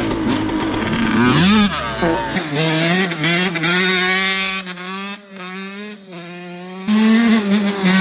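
Yamaha dirt bike engine running under throttle as the bike rides across a dirt track. Its pitch rises about a second and a half in, then holds fairly steady, and it gets louder near the end.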